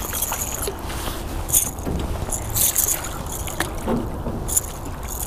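Hooked smallmouth bass splashing at the surface beside the boat as it is brought to the net: several short splashes over a steady low rumble.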